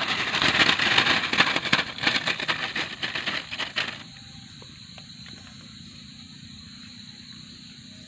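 Dry reed stems and grass crackling and rustling as a small caught fish flips about on them and hands grab at it. The crackling stops abruptly about four seconds in, leaving a faint steady hiss with a thin high steady tone.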